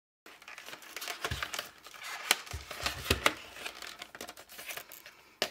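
Cardboard packaging of a marker box being handled and opened by hand: irregular rustling and crinkling with several sharp clicks and a few soft thumps.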